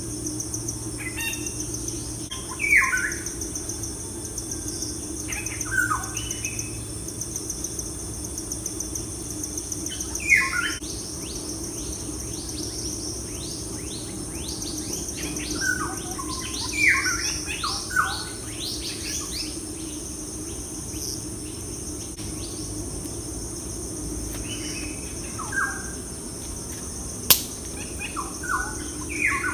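Birds chirping: short, downward-sliding calls every few seconds, with a quick run of calls in the middle, over a steady high hiss and a low hum. A single sharp click comes near the end.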